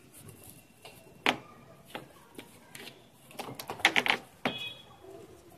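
Plastic clicks and knocks as the Symphony air cooler's side pad panel is fitted back onto the cooler body: a single sharp knock about a second in, then a quick flurry of clicks between about three and a half and four seconds in.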